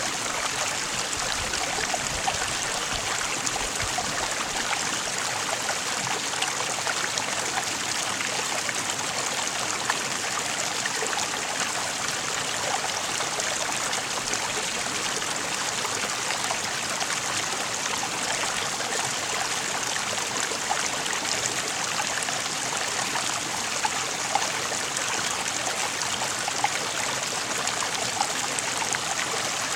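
Water of a stream flowing steadily over rocks: a constant rush with small splashes and trickles here and there.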